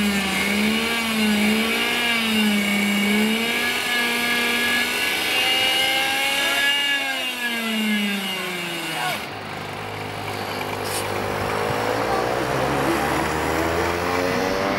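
A pack of racing go-kart engines revving, their pitch rising and falling with the throttle through the corners. About nine seconds in the sound drops, then the engines climb in pitch together as the karts accelerate.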